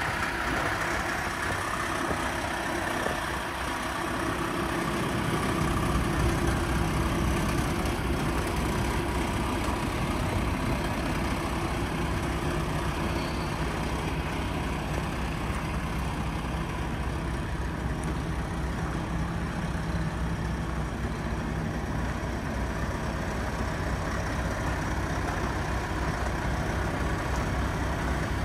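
Diesel engine of a Peterbilt 579 day cab, a PACCAR MX-13, idling steadily. Its low hum grows stronger about five seconds in, then holds even.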